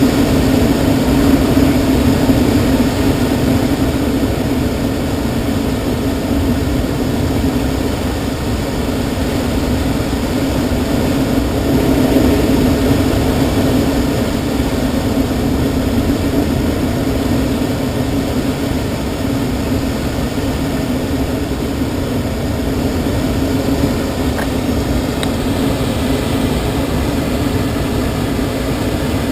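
Steady rush of airflow past a glider's cockpit in flight, a constant wind noise with a low hum.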